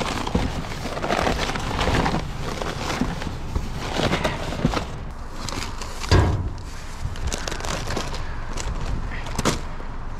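Cardboard food packages and plastic wrappers rustling and knocking as they are handled and packed into a cardboard box, with a louder thump about six seconds in.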